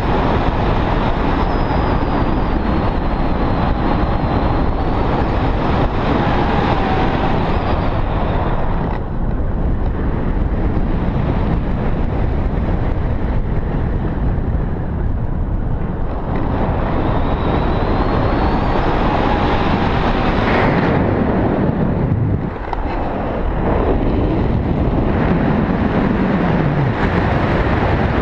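Wind rushing over the microphone of a camera held out on a pole during a tandem paraglider flight: a loud, steady buffeting noise that eases a little at times.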